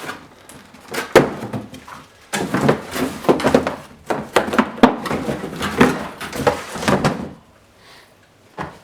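Hard plastic parts of a humidifier being handled and fitted together: a busy run of knocks, clunks and clatters that stops about seven seconds in.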